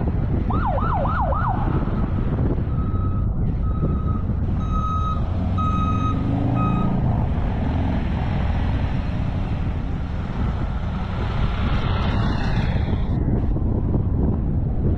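A police siren yelps briefly near the start, a few fast rising-and-falling wails, over the steady road and wind noise of a car driving. Then come five short beeps of one pitch, about a second apart.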